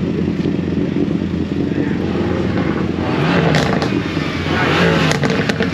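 A car engine running close by, idling steadily, with two louder swells of revs about three and five seconds in.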